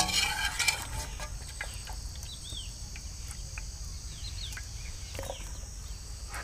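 Outdoor rural ambience: a steady high insect buzz, with a few short bird chirps. There is a brief burst of handling noise in the first second.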